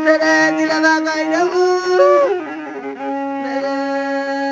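Ethiopian azmari music on the masinko, the one-string bowed fiddle. It plays long held notes with small ornaments, and a little past halfway it slides down to a lower note and holds it.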